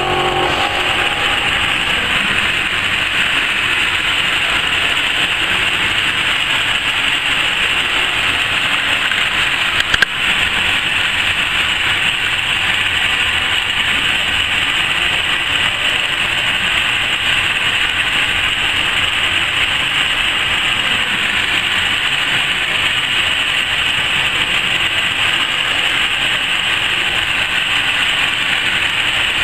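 Laser fabric-cutting machine running as its head cuts a pattern: a steady hissing whir, with one sharp click about ten seconds in.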